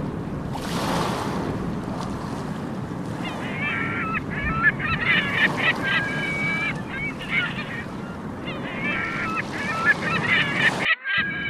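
Seagulls calling in two bouts of sharp, repeated cries over a steady wash of breaking surf. The sound drops out briefly near the end.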